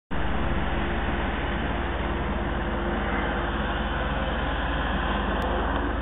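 A machine's engine running steadily, with a fast, even low throb under a constant hiss.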